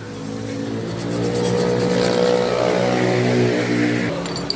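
A motor vehicle engine running steadily. It grows louder through the middle and drops away abruptly about four seconds in.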